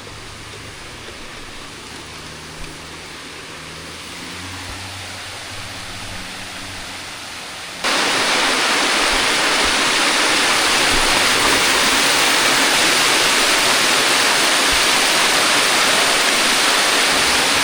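Waterfall rushing, a steady even roar of falling water that jumps suddenly to much louder about eight seconds in and stays loud.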